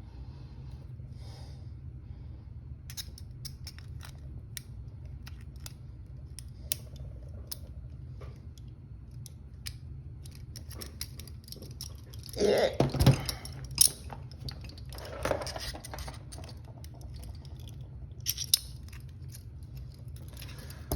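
Lock picks working inside a handcuff: scattered small metal clicks and scrapes, over a steady low hum.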